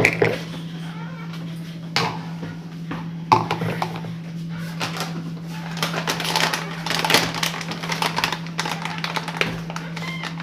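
Kitchen clatter: scattered knocks, clicks and scrapes of utensils and containers being handled while cake batter ingredients are put together, over a steady low hum.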